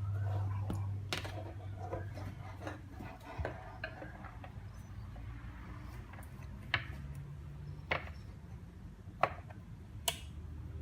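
Rega RP1 turntable running after its motor repair: a low steady hum from the motor, with scattered light clicks, four sharper ones spaced about a second apart in the second half.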